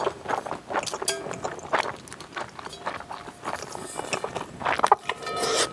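Close-miked mouth sounds of eating spicy cold noodles (naengmyeon): wet chewing and smacking in quick irregular clicks, with a longer slurp near the end. Chopsticks clink lightly against the brass bowl.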